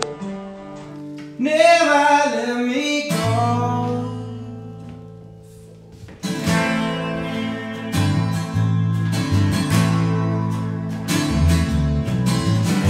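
Live rock band playing: a sung phrase over a chord that rings and fades out, then from about six seconds in, strummed acoustic guitar with electric guitar and bass guitar.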